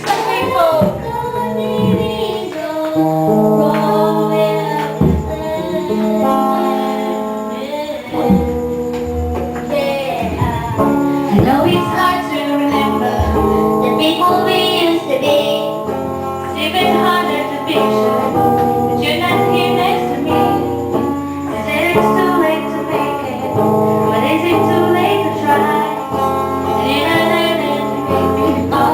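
A song sung by a female voice over instrumental backing.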